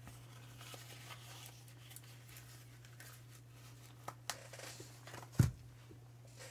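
Faint rustling and small clicks of handling at a workbench, two sharper clicks just after four seconds in, then a single loud low thump about five and a half seconds in, over a steady low hum.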